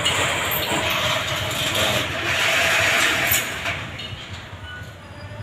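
A train passing on the PNR railway line: a steady rushing noise with a faint tone in it, which grows loudest around the middle and eases off near the end.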